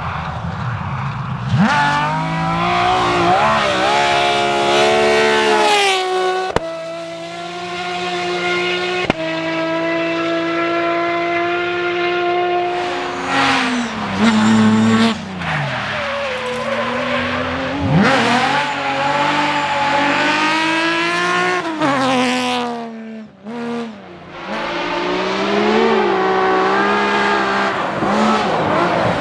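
BMW rally car engines at high revs, climbing through the gears and dropping back as the cars lift off and brake, rising and falling in pitch as they pass. Several cars are heard one after another.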